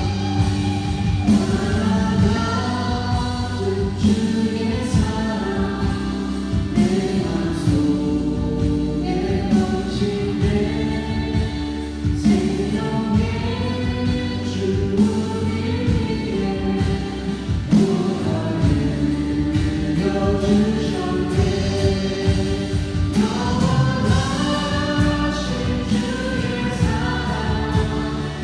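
A group of voices singing a worship song together over band accompaniment with a steady drum beat.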